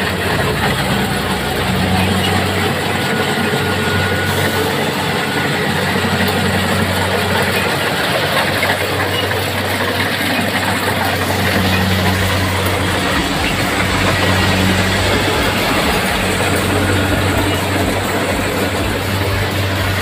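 Kubota rice combine harvester running steadily as it cuts and threshes rice: a low diesel engine hum under a dense, even whir of the cutting and threshing machinery. The engine note shifts slightly a couple of times.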